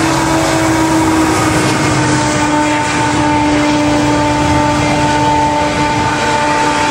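Canadian National freight train passing close: the locomotives go by, then mostly empty potash hopper cars roll past, a loud steady rush and rumble of wheels on rail with a steady whine held through it.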